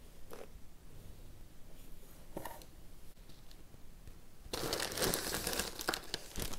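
Packaging crinkling and rustling as it is handled, starting about four and a half seconds in after a few faint knocks.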